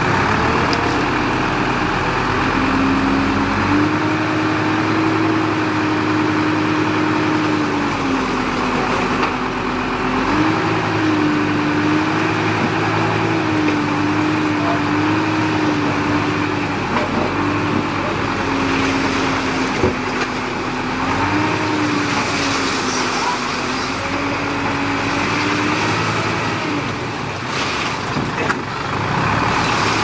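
Diesel engine of small earthmoving machinery running, its note stepping up and down every few seconds.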